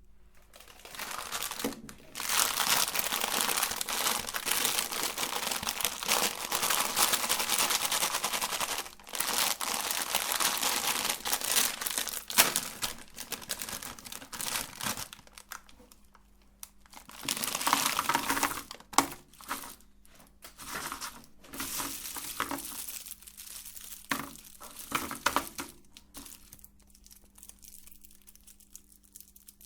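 Electric meat grinder crushing and grinding candy: long stretches of crackling and crunching with sharp cracks and brief pauses, over the motor's steady hum.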